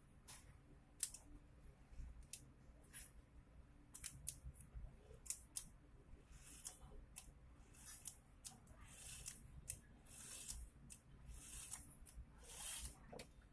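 Faint scattered clicks, taps and short scrapes of small plastic and metal parts being handled while a Makita 6205D cordless drill is taken apart.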